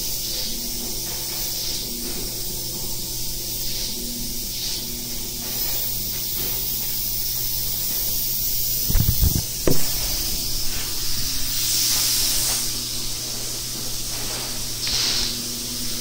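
Air spray gun hissing as it sprays Gatorhyde spray-in bedliner, swelling in bursts near the end, over a steady low hum. Two loud thumps about nine to ten seconds in.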